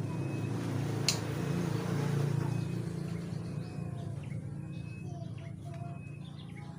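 Low steady hum from a powered-on Sakura AV-735 amplifier that gives no audio, the hum the owner reported. Its protection relay stays off, which the technician puts down to a faulty driver board. A single sharp click comes about a second in, and birds chirp in the second half.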